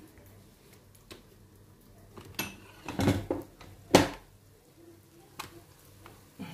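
A few scattered knocks and clatters of kitchen handling, the loudest a single sharp knock about four seconds in.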